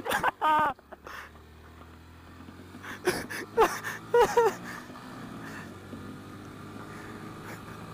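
Honda Grom's 125 cc single-cylinder engine running steadily at cruising speed, heard from the rider's helmet camera over light wind noise. A person's voice breaks in briefly about half a second in and again around three to four seconds in.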